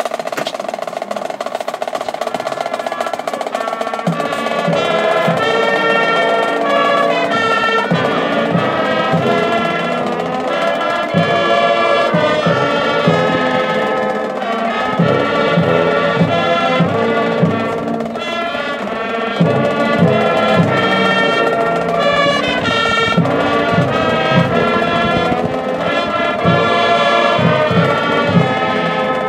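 Marching band playing the national anthem: brass and flutes in full chords over drums. It opens on a held chord, and the drum strokes come in about four seconds in.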